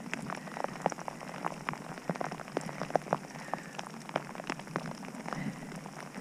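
Rain striking close to the microphone, heard as many irregular light ticks over a soft hiss.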